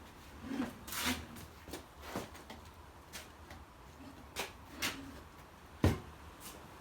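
Scattered knocks, clicks and scrapes of a tractor tyre being worked onto its wheel rim on a manual tyre changer, with one sharper knock about six seconds in.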